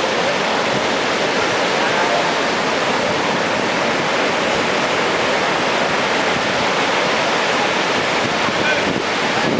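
Heavy storm surf breaking on a sandy beach: a loud, steady noise of waves.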